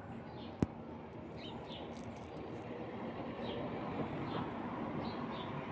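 Steady outdoor background noise with faint, short bird chirps now and then, and one sharp click about half a second in.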